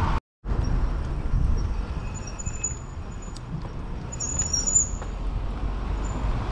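Outdoor street noise: a steady low rumble of traffic, with a few faint high chirps in the middle, broken by a brief dropout just after the start.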